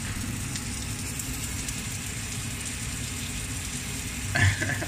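Breaded fish fillets frying in oil in a pan: a steady sizzle over a low, even rumble, with a brief louder sound near the end.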